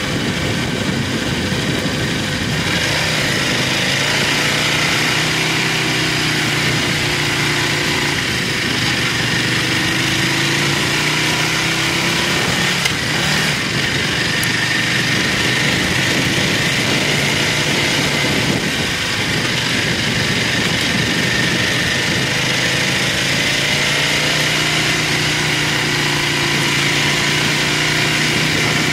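Buell motorcycle's engine running under way, its pitch rising and falling several times with the throttle through the curves, over a steady rush of wind and road noise on the bike-mounted microphone.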